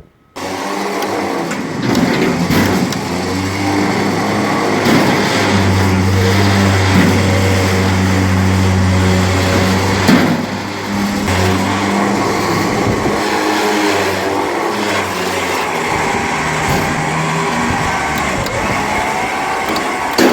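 Electric trailer winch motor running steadily under load as it pulls a car up onto a trailer, a loud hum that starts suddenly and shifts in strength a couple of times as the load changes.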